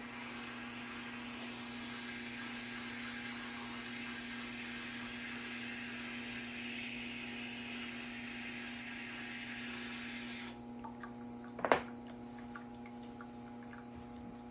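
Water running steadily from a tap for about ten seconds, then shut off abruptly, followed by a single sharp knock.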